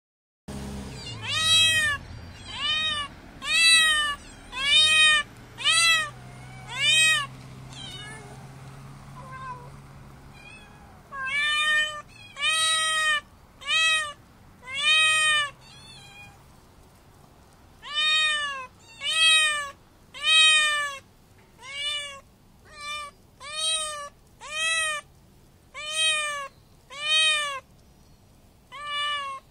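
Tabby cat meowing loudly over and over, about one call a second, in three runs with short pauses between them; each meow rises and then falls in pitch.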